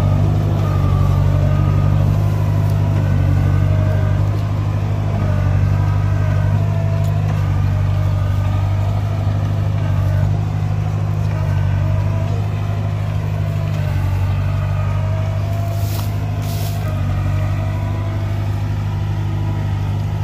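Kubota DC70 combine harvester's diesel engine running at a steady speed, a constant low drone throughout.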